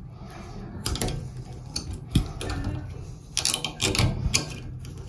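A metal pick scraping and clicking inside the bore of an old brass Delta shower valve body, in irregular scratches and taps.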